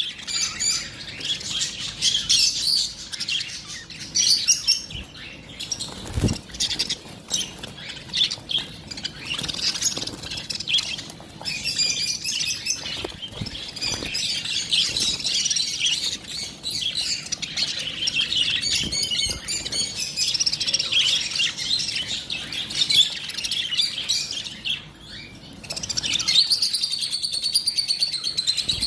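Lovebirds chirping and chattering continuously in quick, high-pitched calls, with a brief low thump about six seconds in.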